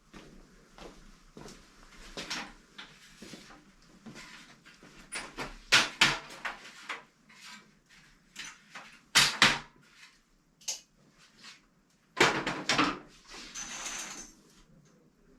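Irregular knocks, clicks and clattering of hard objects being handled, with the loudest knocks about six, nine and twelve seconds in.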